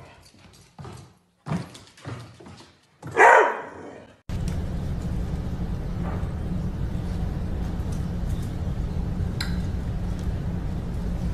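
A dog's claws clicking on a hardwood floor, then one loud bark about three seconds in. After an abrupt cut, a steady low hum carries on to the end.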